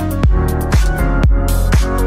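Electronic dance music with a steady kick drum, about two beats a second, over sustained bass and synth chords.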